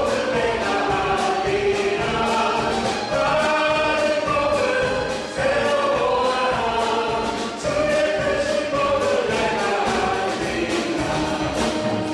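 Church praise team singing a worship song together, held notes over instrumental accompaniment with a steady beat.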